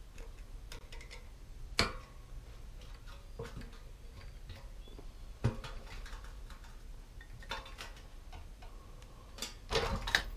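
Scattered metal clicks and clinks of vice grips working the nut on a well pump's braided pressure hose fitting as it is tightened: a few separate sharp clicks, the loudest about two seconds in, and a quick cluster of them near the end.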